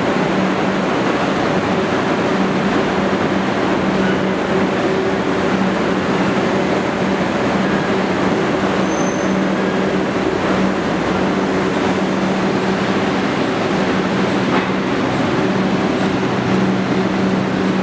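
R62A subway train running out of an underground station: a steady loud rumble and clatter of the cars on the rails, with a constant low hum under it.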